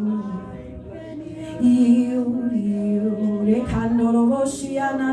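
A woman singing slow, long-held notes in spontaneous worship, moving from one pitch to the next about every second, with a brief low thump about three and a half seconds in.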